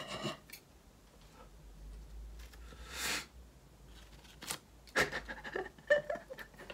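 Scissors cutting through a paper cut-out, a few quiet snips and paper rustles. Near the end come short breathy voice sounds from the person cutting.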